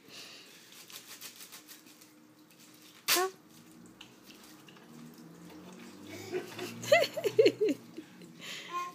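Plastic air-pillow packing being torn and crinkled by hand, a faint rustling, while a baby laughs: one short sharp squeal about three seconds in and a quick run of loud giggles near the end.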